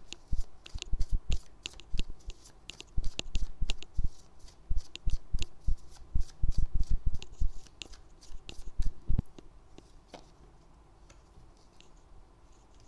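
A deck of tarot cards shuffled by hand: a rapid run of clicks, riffles and soft low thumps as the cards are worked. It dies down to faint, scattered ticks about nine seconds in.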